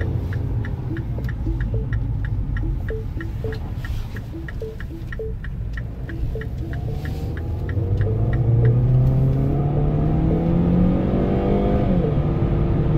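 A car's seatbelt warning chime pinging about three times a second, because the driver's belt is unbuckled, dying away about halfway through. The Mini Cooper Clubman's engine then accelerates, rising steadily in pitch, and drops sharply near the end as the automatic gearbox shifts up.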